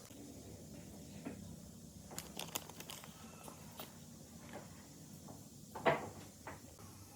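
Scattered light clicks and knocks over a faint low background: a quick cluster of clicks a little after two seconds, one near four seconds, and a louder knock near six seconds in.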